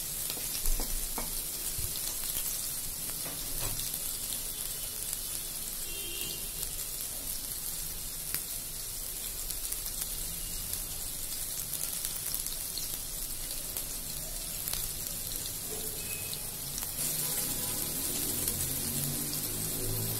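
Sliced onions frying in hot oil in an aluminium pot, a steady sizzle. There is a light knock about a second in.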